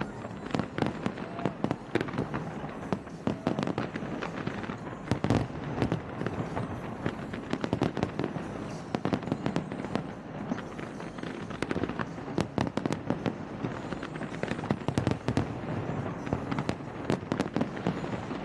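Fireworks display going off: a continuous barrage of rapid, irregular bangs and crackles with no letup.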